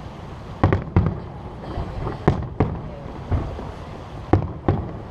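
Display fireworks bursting overhead: a string of about seven sharp bangs at uneven spacing, several coming in quick pairs, over a steady low rumble.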